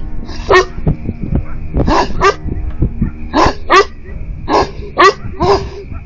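Livestock guardian dog barking: about eight loud, deep barks, several in quick pairs, answering coyotes at night. A steady low hum runs underneath.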